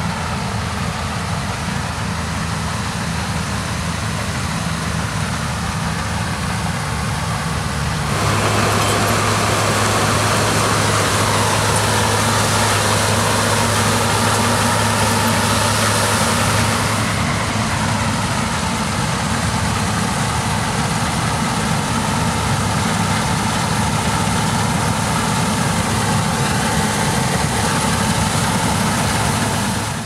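New Holland CX8070 combine harvester running under load while harvesting rice: a steady engine and threshing-machinery drone with hiss. About eight seconds in it becomes louder, with a strong low hum and more hiss, and eases a little after about seventeen seconds.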